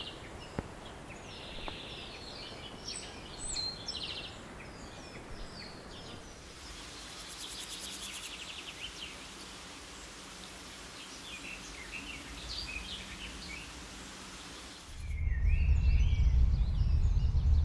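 Birds chirping and calling in short whistled notes over a steady outdoor background, with a stretch of fast, rasping pulsed calls. A few seconds before the end a loud low rumble comes in, and the calls continue over it.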